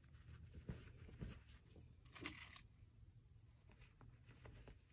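Near silence with faint rustling and small ticks of cotton fabric pieces being handled and pinned together by hand.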